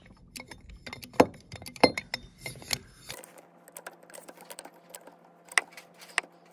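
Hand-pumped hydraulic crimping tool being worked to crimp a stainless steel fitting onto 1/8-inch stainless braided cable: a series of separate sharp metallic clicks and clacks from the tool's handle strokes, loudest about a second and two seconds in.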